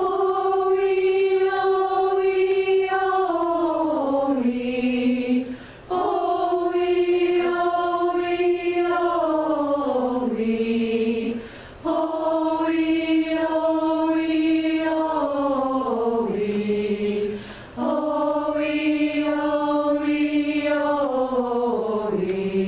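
Chorus singing a vocal warm-up in unison on a vowel: four phrases, each holding one note for a few seconds and then dropping down in pitch, each starting a step lower than the one before, with short breaths between.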